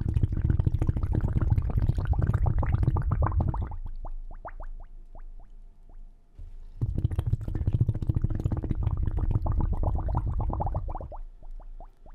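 Beaked whale echolocation clicks: a dense, rapid click train that thins out into slower, separate clicks, each sweeping upward in pitch. After a short lull a second train starts about seven seconds in and thins out the same way.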